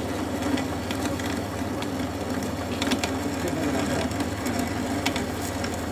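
Metal lathe running with its chuck spinning and a cutting tool working on a metal nut: a steady gear-driven hum with scattered sharp ticks of metal.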